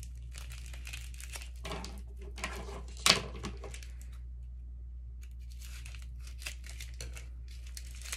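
Crinkling and rustling of small plastic packets being handled, including the sachet of plastic gloves, with one sharper, louder crinkle about three seconds in. A short lull follows, then fainter rustling.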